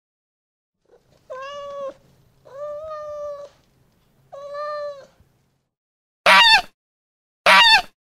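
A Scottish Fold cat meowing three times, each meow under a second long and steady in pitch. Near the end come two loud, harsh honks from a Canada goose, about a second apart.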